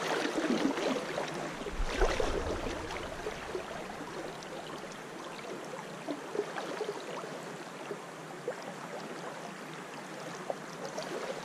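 Shallow stream running and riffling around a wading angler, with a few sloshes of water against the legs in the first couple of seconds.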